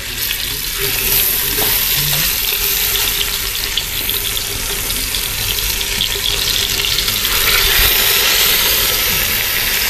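Pork fillet searing in hot oil in a Dutch oven: a steady, loud sizzle that swells a little near the end.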